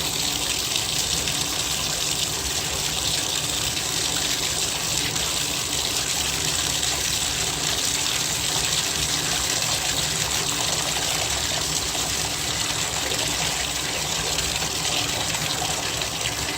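Bathtub faucet running steadily into the tub with the new push-down stopper closed, filling it to check that the newly installed drain holds water.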